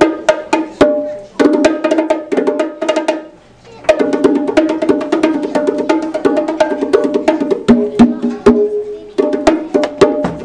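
Bongo drums played by hand in fast rhythmic runs of sharp, pitched strikes at a high and a low pitch, breaking off briefly twice.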